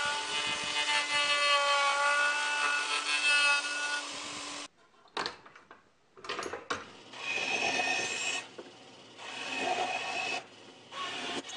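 A router on a pantorouter runs and carves the end of a wooden axe-handle tenon, its motor pitch wavering a little under load, then stops about four and a half seconds in. Then a bandsaw makes several short cuts through the wood of the handle.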